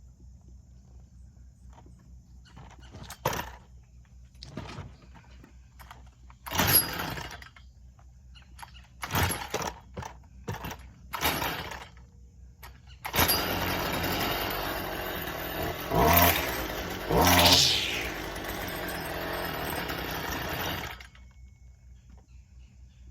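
STIHL FS55R string trimmer's small two-stroke engine, freshly tuned up, being pull-started: several short pulls before it catches about 13 seconds in. It then runs for about eight seconds, is revved up twice in the middle, and cuts off suddenly.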